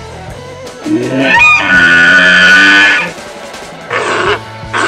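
An African elephant trumpeting: one loud, brassy call starting about a second in and lasting about two seconds, over background music with a plucked guitar. A shorter, rougher animal call follows near the end.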